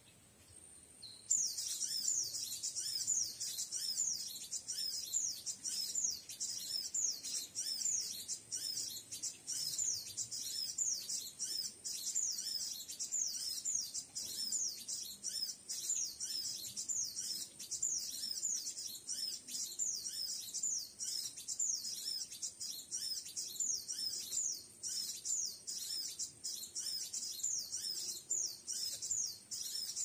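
High-pitched bird chirping: quick descending notes repeated about three times a second in an even, unbroken run, starting abruptly about a second in.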